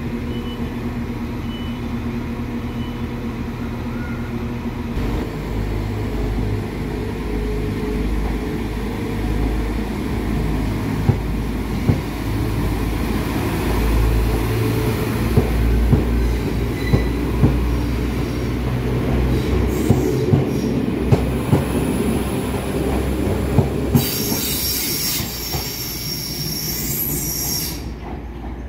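NI Railways Class 4000 diesel multiple unit pulling out past the platform, its underfloor diesel engines running with a low rumble that grows louder about five seconds in. Its wheels click over the rail joints in irregular knocks as the carriages go by, and high wheel squeal on the curved track comes in near the end.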